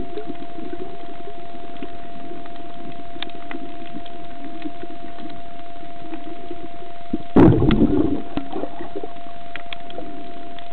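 Underwater recording through a camera's waterproof housing: a muffled low murmur with a steady tone and scattered small clicks, and one brief loud burst of noise a little past seven seconds in.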